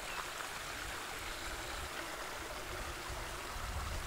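A shallow, rocky stream runs over boulders and stones with a steady rushing sound.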